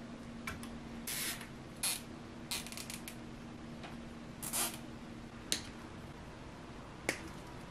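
Short rasping zips and sharp clicks from a plastic cable tie being worked tight around a bundle of white PTFE filament tubes, with the tubes rustling between them. There are four rasps in the first half and two clicks later on.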